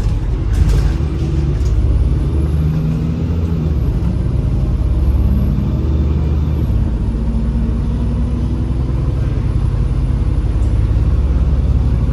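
Inside a MAZ-203 city bus under way: the engine and drivetrain run with a steady low drone whose pitch shifts up and down as the bus pulls and eases off, under a faint high whine. There is a short clatter about half a second in.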